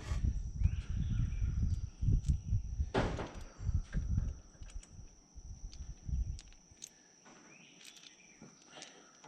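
Outdoor work-site ambience: an uneven low rumbling that dies away about six and a half seconds in, a steady high-pitched insect drone, and a few light knocks.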